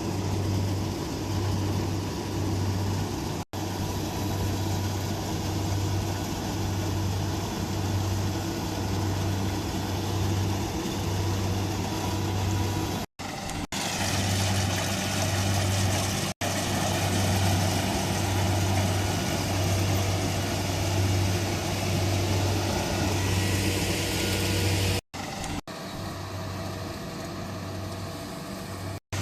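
Rice harvesting machine's engine running steadily, with a low hum that swells and fades about once a second under a broad mechanical clatter. The sound breaks off abruptly for a moment several times.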